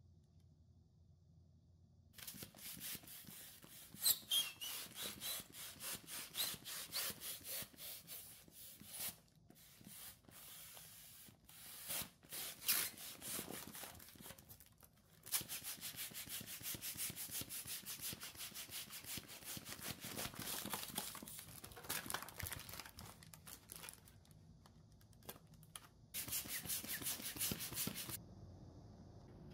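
Crinkling and rustling of plastic packaging and black foil balloons being handled, starting about two seconds in as a dense crackle of many quick strokes with brief pauses.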